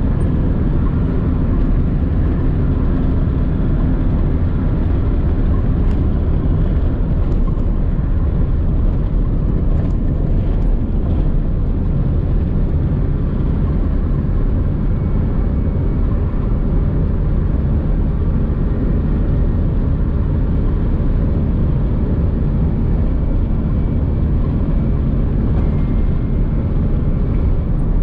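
Nissan car driving along a road: a steady low rumble of engine and tyre noise.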